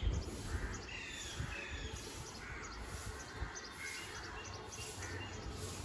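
Outdoor ambience with scattered short bird chirps over a steady low background rumble.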